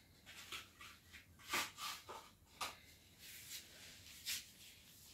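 Faint rustling of a paper packet and a few light knocks as baking ingredients and a spoon are handled on a kitchen counter, in a handful of short, separate bursts.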